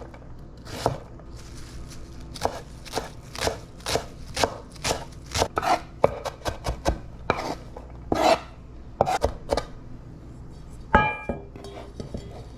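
Knife chopping on a cutting board in a run of sharp strokes, roughly two a second, that stops about three quarters of the way through. It is followed by a single ringing clink of a dish or pan.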